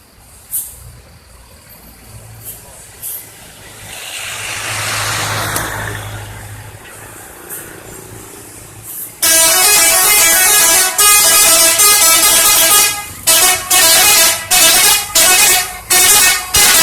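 A bus's telolet horn, a set of musical air horns, blares a changing multi-note melody: one long loud sounding about halfway through, then a string of short blasts. Earlier a vehicle goes by, its noise swelling and fading.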